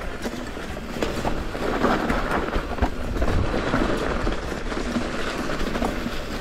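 Rocky Mountain Instinct full-suspension mountain bike rolling fast down a leaf-covered dirt singletrack: tyres crackling over dry leaves and the bike rattling and knocking over bumps, louder from about two seconds in.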